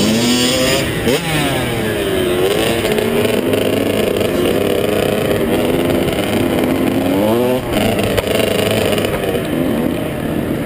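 Small two-stroke youth motocross bike engine racing, its revs rising and falling again and again as the rider works the throttle and gears, heard close up with rushing noise on a helmet-mounted camera.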